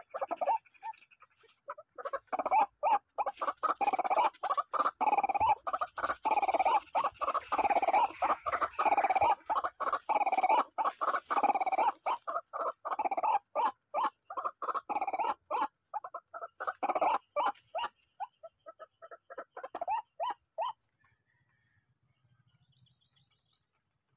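Barred rail (tikling) calling: a long run of rapid, repeated notes that stops about 21 seconds in.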